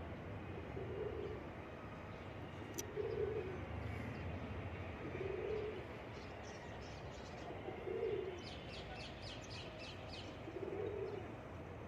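Pigeons cooing: low, soft coos repeating about every two and a half seconds. Small birds chirp in quick high runs in the second half.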